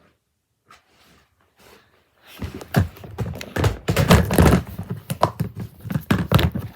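Hard toy pieces being handled and knocked together: a few faint taps, then from about two seconds in a dense run of loud knocks and clatter.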